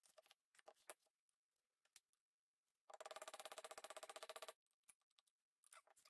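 Near silence with a few faint clicks as metal parts and tools are handled. About halfway through comes a quick, even, faint rattle lasting a second and a half.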